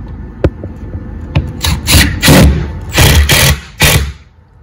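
Cordless drill driving a screw through a metal bracket into wood, run in four short bursts of the trigger.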